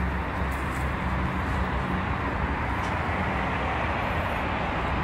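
Steady noise of a car driving: a low rumble of engine and road under a rushing hiss.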